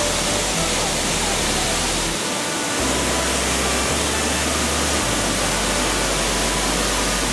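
Steady rushing of a large waterfall, falling water plunging down a high rock face: a loud, even, unbroken hiss.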